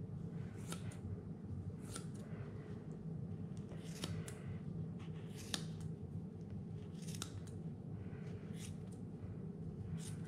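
Scissors snipping through an angora rabbit's thick wool: about a dozen short, sharp snips at irregular intervals, several in quick pairs, over a steady low hum.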